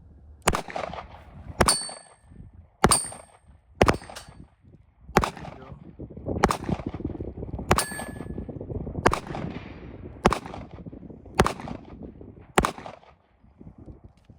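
Eleven gunshots fired at a steady pace, about one every 1.2 seconds, at steel targets. Several shots are followed by a short high ring of struck steel plate.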